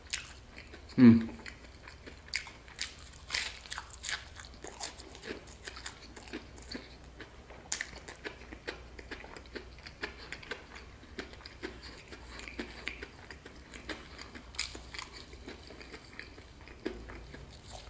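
Crunchy deep-fried, battered chicken strips being bitten and chewed up close: irregular crisp crunches of the fried coating, on and off throughout.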